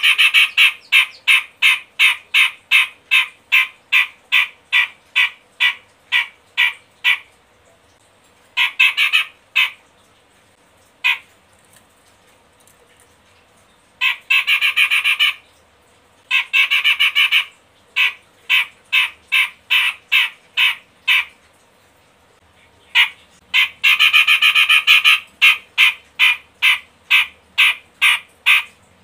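Cucak jenggot (grey-cheeked bulbul) calling in bursts of rapid, harsh chattering notes, several a second, with pauses of a few seconds between bursts.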